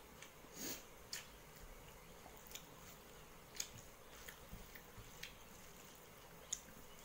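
Faint eating-by-hand sounds: scattered soft clicks and squishes of fingers mixing rice with dal and omelette on a steel plate, with some chewing.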